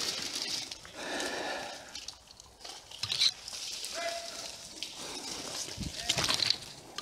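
Leafy bush branches brushing and rustling against the camera and clothing as a person pushes through the undergrowth, with footsteps on leaf litter and twig snaps.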